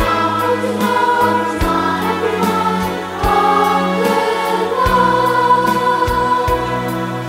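Boys' choir singing held notes of a song with instrumental accompaniment and a light steady beat.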